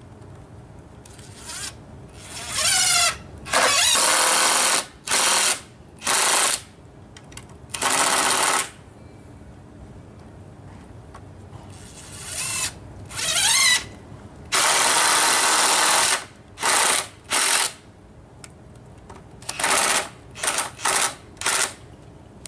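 Cordless power drill running in about a dozen short bursts on the wooden table frame, some of them spinning up with a rising whine.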